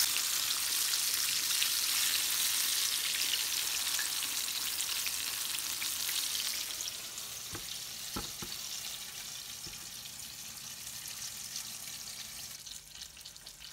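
Breaded redfish fillets deep-frying in hot oil in a cast iron skillet: a steady sizzle and crackle that fades over the second half. A couple of light knocks come about halfway through.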